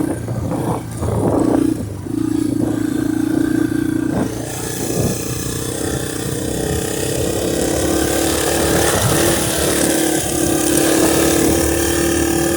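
A vehicle engine being ridden: its note cuts in and out a few times as the throttle is worked, then holds steady and climbs slightly near the end. Wind noise on the microphone comes in about four seconds in.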